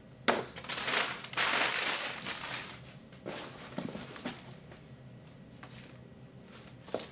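Brown kraft packing paper rustling and crinkling as items are pulled out of a cardboard shipping box, loudest for about two seconds after a short knock near the start, then quieter handling noises.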